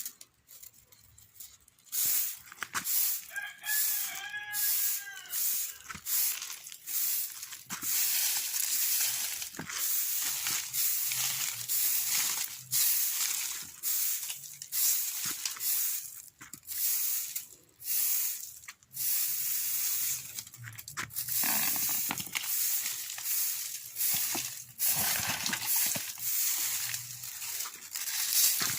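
A rooster crows once, about three seconds in, over repeated scratchy scraping and rubbing noises that go on in short strokes throughout.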